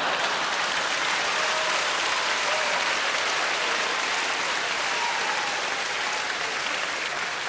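Audience applause, steady and dense, easing slightly near the end.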